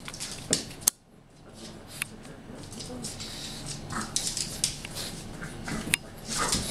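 Pug snuffling and chewing at a tug toy, with several sharp clicks. A short pitched whine rises near the end.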